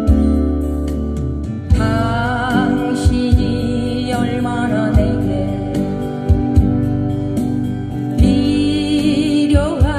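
Live acoustic guitars played through PA speakers, with a voice singing over them that comes in about two seconds in, its held notes wavering with vibrato.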